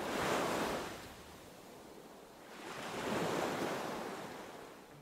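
Wave-wash whoosh sound effect for a logo transition: rushing noise that swells and fades twice, once at the start and again about three seconds in.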